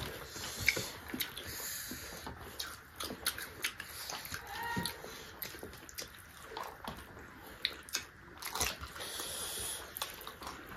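Close-miked mukbang eating sounds: wet chewing and lip smacking, with many short sticky clicks as rice and curry are pressed and squished by hand.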